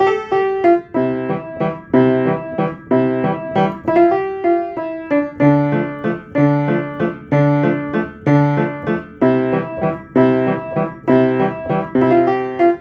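Piano playing a repeating riff: a low bass figure under chords, with a strong attack about once a second and notes decaying between them.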